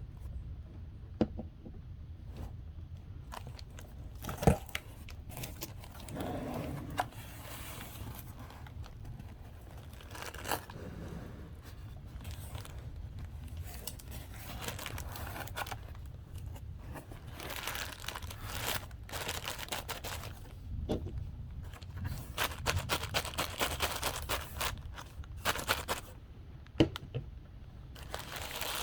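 Packaging being torn open and crinkled by hand, in irregular crackling stretches with a few sharp knocks in between.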